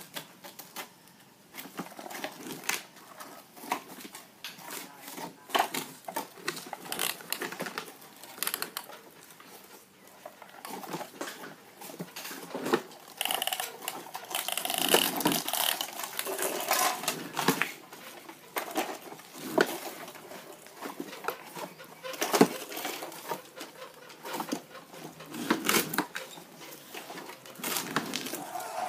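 Plastic toy construction vehicles being handled and pushed about, giving irregular clicks, knocks and rattles.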